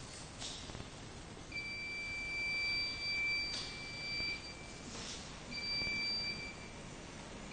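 An automated guided vehicle's warning buzzer sounding as it travels: a steady, high, pure-toned beep lasting about three seconds, then a shorter beep about a second later.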